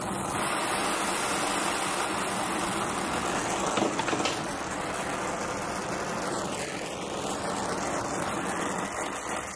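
Oxy-acetylene brazing torch flame hissing steadily as it heats copper pipe. The flame is set loud, which on this torch means hot, the setting needed for this larger copper line.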